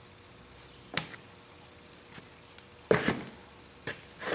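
A few knocks and clatters from handling the cast-iron shift cover of a Ford Model A transmission: a single sharp tap about a second in, then a short cluster of knocks near three seconds and one more a second later.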